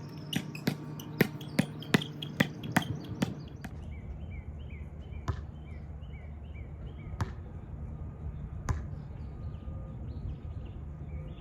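Basketball bouncing on a hard outdoor court: a quick run of about nine bounces in the first three seconds, then three single bounces spaced out over the rest.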